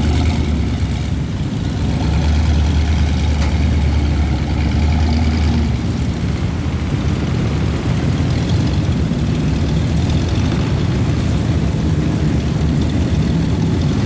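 Heavy engines of lifted mud trucks on oversized tyres running steadily under load while wading through deep muddy water, the deep engine note changing about six seconds in.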